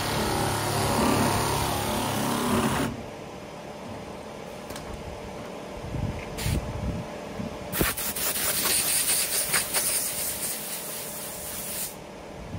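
A pneumatic air board sander running on guide-coated body filler stops about three seconds in. After a few light knocks, compressed air hisses from a blow gun for about four seconds, blowing off the sanding dust, then cuts off.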